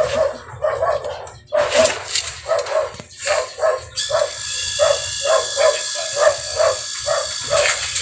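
A dog barking over and over, about three barks a second. About four seconds in, a steady hiss with thin high whining tones starts under the barking.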